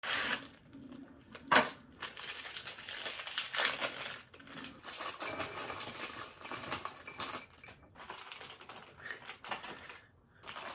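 Snack packaging being opened and handled: plastic wrapping crinkling and a cardboard box rustling, with many small clicks and taps and one sharper click about a second and a half in.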